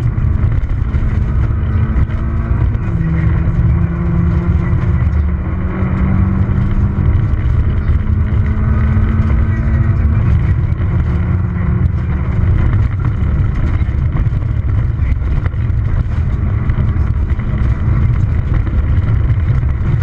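Peugeot 206 XS rally car's engine running hard at high revs, heard from inside the cabin, its pitch dropping and climbing again several times as the driver shifts gears and lifts off. Under it is a steady rumble of tyres on a gravel road.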